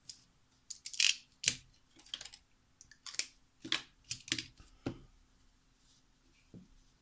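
Craft tools handled on a paper-covered tabletop: about ten irregular sharp clicks and light knocks over a few seconds, then a single soft knock near the end.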